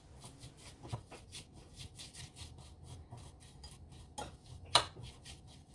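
Metal spoon tossing shredded carrot in a ceramic bowl to mix in the sugar and vinegar for a pickle: a quick run of soft scrapes, about four a second, with two sharper clinks of the spoon against the bowl a little after four seconds in.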